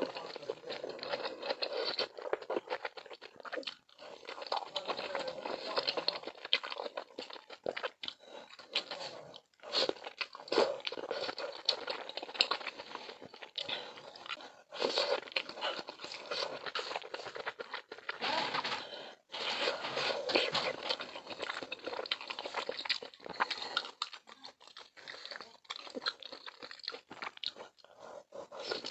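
Close-miked chewing and biting of milk malatang, spicy hot-pot food in a milky broth: a dense run of short, wet mouth clicks, broken by a few brief pauses.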